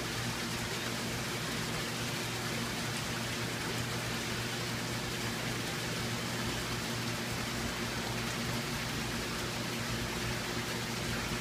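Steady rush of moving water from an aquarium system, with a low steady hum underneath.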